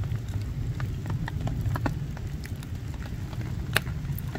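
Wood campfire crackling and popping over a steady low rush, with one louder pop near the end.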